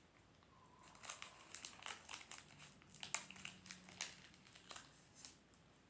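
Faint, irregular crinkling of a Pokémon card pack's plastic wrapper being handled, a run of small crackles starting about a second in.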